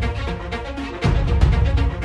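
Background music with a steady beat; a heavy bass pulse comes in about a second in.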